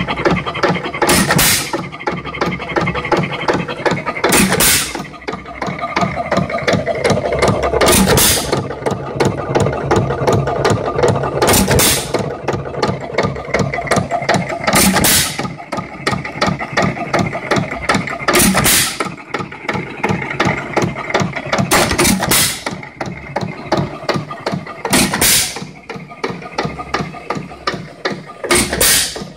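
A 3 1/2 hp Jaeger hit-and-miss engine running unloaded. It fires with a loud bang only about every three and a half seconds and coasts on its flywheels between firings, while its moving parts keep up a fast, light clicking.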